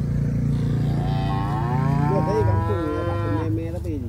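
A calf mooing: a long low call, then a higher call that rises in about a second in, is held, and cuts off sharply near the end.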